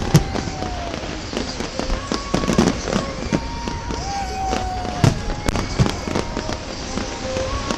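Large fireworks display, shells bursting in irregular bangs and crackles several times a second, with held tones that slide down slightly in pitch in between.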